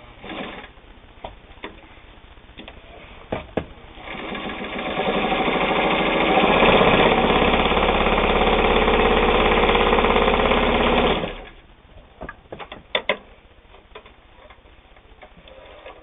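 Kenmore 158.521 all-steel gear-driven sewing machine running at speed, sewing a straight stitch: it starts about four seconds in, speeds up over a couple of seconds, runs steadily and stops abruptly near eleven seconds. Light clicks before and after.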